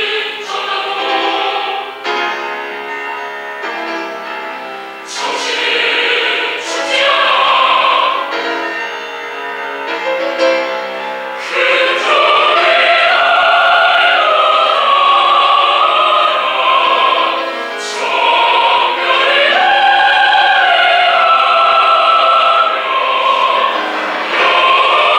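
Choir singing with piano accompaniment, softer at first and swelling to full voice a little under halfway through.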